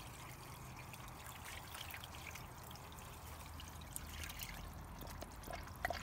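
Water trickling out of a tipped plastic bucket onto concrete as a catch of live crayfish is drained: a faint, steady trickle with a few small ticks.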